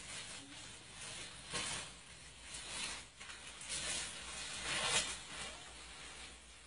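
Rustling leaves and branches in bursts, about four of them roughly a second apart, as a wild elephant rears against a jackfruit tree and tugs at its branches with its trunk.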